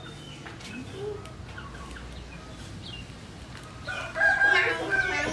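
A rooster crowing once, a long call beginning about four seconds in, with faint bird chirps before it.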